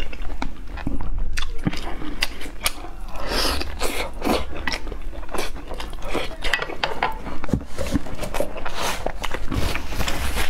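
Close-miked chewing and biting of braised meat: wet mouth sounds with many irregular clicks.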